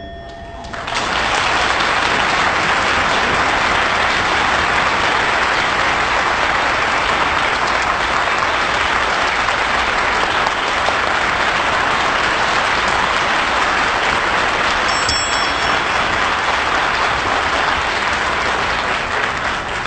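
Audience applauding steadily for about eighteen seconds, starting about a second in and fading out near the end.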